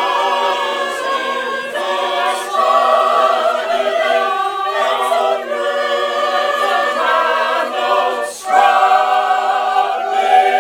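Mixed adult choir of men and women singing together in sustained chords that change every second or so, with a short break for breath about eight seconds in.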